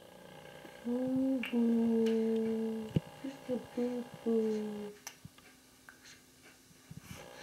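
A person humming a short, slow tune to a baby: two long held notes, then a few short ones, then a last note that sags slightly and stops about five seconds in. A sharp tap sounds once, about three seconds in.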